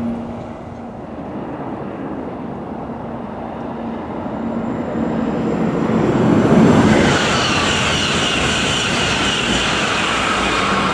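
High-speed train passing at line speed. The noise builds over the first six seconds and is loudest about two-thirds of the way through, then turns into a high hiss with a whine as the train runs by.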